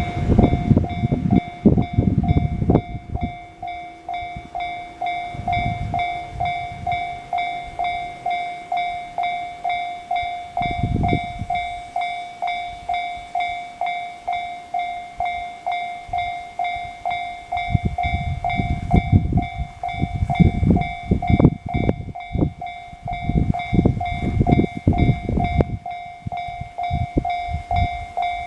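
A railway level crossing's warning bell dings over and over at an even pace the whole time. A train rumbles and clatters over the rails at the start, and again from about 18 seconds in to the end.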